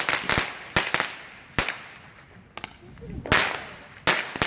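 Consumer fireworks going off in a series of sharp, loud bangs, about seven at irregular intervals, each ringing out briefly.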